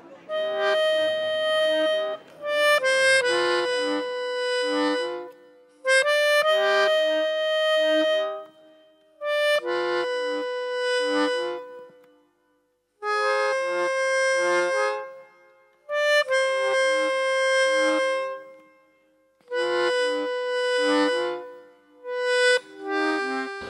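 Background music: a slow accordion tune in phrases of a few seconds each, separated by brief pauses, with short lower accompaniment notes beneath the held melody notes.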